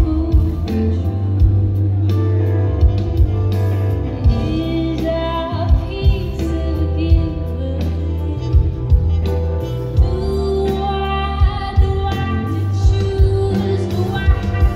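Live band music with a woman singing over heavy bass and drum hits, recorded on a phone in the audience.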